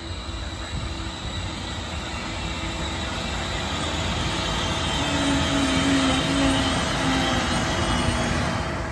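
Passenger train hauled by an E402B electric locomotive running along the platform, growing steadily louder with a rumble of wheels on rail. From about halfway through, a squealing tone joins in.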